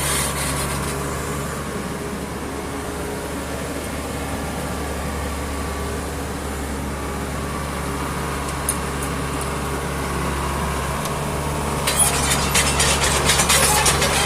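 Doosan DH55-7 midi excavator's diesel engine idling steadily. About twelve seconds in, a dense clattering and rattling joins it and the sound gets louder.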